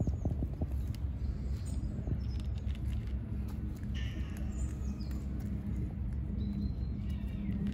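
Outdoor ambience with a steady low rumble, small birds chirping a few times, and faint clicks of a cat licking and chewing wet food from a plastic tub.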